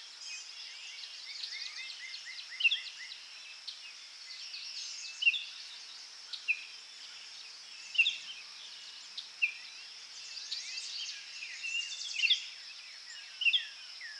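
Outdoor nature ambience: birds chirping, with short sharp falling calls every second or two, over a steady high insect buzz.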